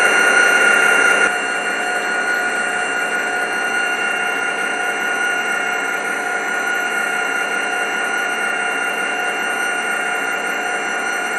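A model freight train running steadily along the track, a continuous mechanical whir of motor and wheels on rail. It drops a little in level about a second in.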